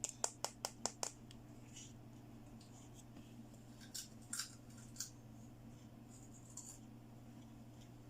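A quick run of six small sharp clicks, about five a second, then a few more scattered clicks a few seconds later, from hands handling plastic toy pieces and packaging. A steady low hum runs beneath.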